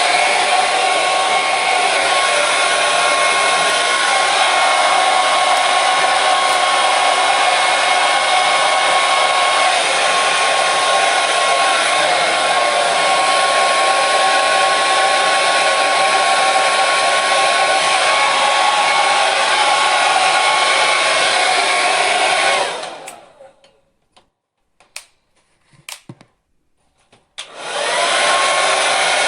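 Electric hair dryer running with a steady whooshing rush and a faint motor whine. About 23 seconds in it is switched off and winds down. After a few seconds of quiet broken by a few clicks, it is switched back on and the whine rises again.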